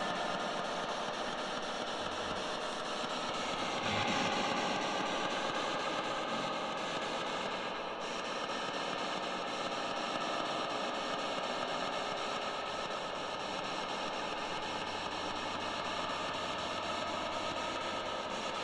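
Steady static hiss with faint tones drifting through it, changing character about four seconds in: the noise of a spirit-box device left running to listen for answers.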